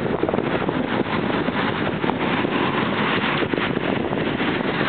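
Steady rushing roar of an Airbus A380's jet engines heard from afar as it lands, mixed with wind buffeting the microphone.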